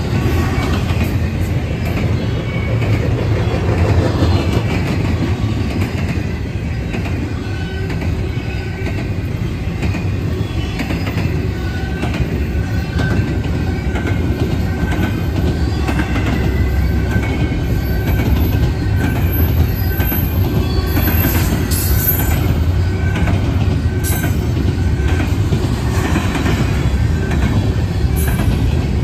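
BNSF double-stack intermodal freight train rolling past at speed: a steady, heavy low rumble of the cars and wheels on the rails, with occasional faint high-pitched tones over it.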